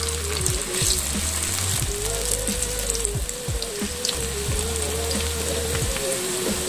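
Hot soybean oil sizzling steadily as potato sticks deep-fry in a wok, with more sticks being dropped in by hand. Background music with a wavering melody and a pulsing bass plays over the sizzle.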